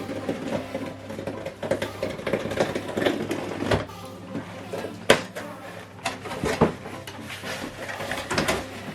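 Unboxing handling noise: cardboard and packaging being moved and scraped, with a few sharp knocks, over a faint steady hum.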